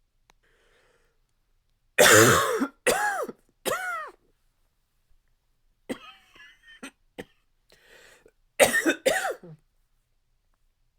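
A man's dry, barky cough: three loud coughs in quick succession about two seconds in, softer throat and breath noises, then two more loud coughs near the end.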